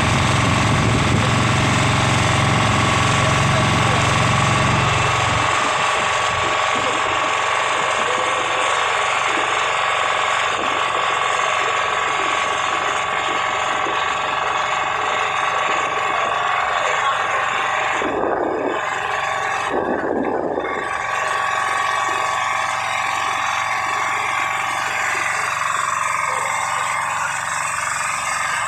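Engine of a small motorized outrigger boat running steadily under way, a loud continuous mechanical drone; its deep low rumble drops away about five seconds in.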